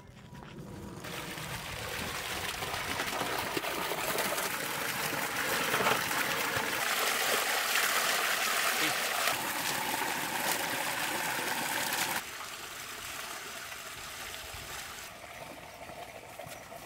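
Water gushing from a pipe into a large metal basin and colander of fish pieces, splashing as hands rub and wash the fish. The flow builds over the first two seconds and drops abruptly about twelve seconds in, leaving a lighter sound of running water.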